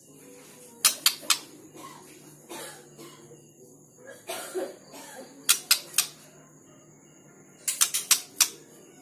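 A caged white-rumped shama (murai batu) moving about its cage, making sharp clicks and taps. They come in three short clusters: three clicks about a second in, three more around the middle, and a quicker run of about five near the end.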